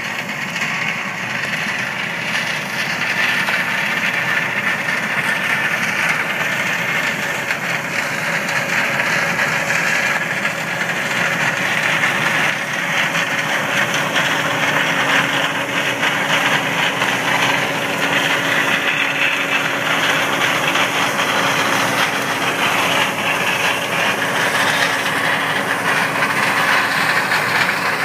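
John Deere combine harvesting standing corn: its engine and threshing machinery run with a steady, loud mechanical rush that builds as the machine comes close. A steady hum joins about halfway through.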